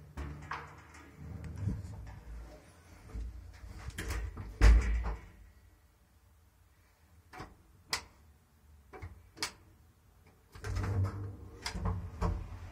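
Hinged landing door of a 1960s Schlieren lift being handled, opened and shut, with a loud bang about halfway through as it closes. A few sharp single clicks follow, then a cluster of clattering knocks with a low rumble near the end.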